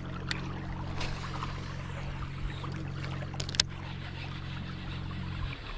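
Boat's outboard motor running at a steady speed over water noise, with a few sharp clicks and knocks; the motor sound cuts off near the end.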